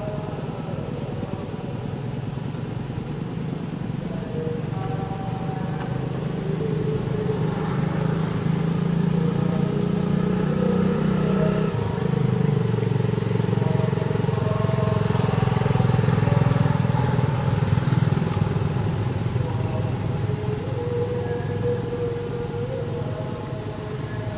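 A motor vehicle engine running nearby, its hum growing louder toward the middle and fading again, with a sudden change in pitch about halfway through.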